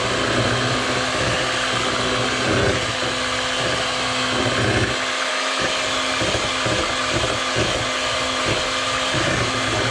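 Electric hand mixer running steadily, its beaters whisking a bowl of eggs and cream, with a constant motor hum.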